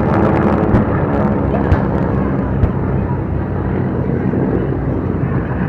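Piston-engine propeller aircraft flying past overhead: a steady low engine drone, with a few faint sharp clicks in the first few seconds.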